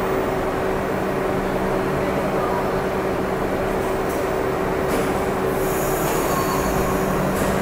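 A subway train standing at a station platform, its equipment giving a steady two-tone hum. Short high hisses of air come about four and five seconds in, and a sharp click or thump near the end.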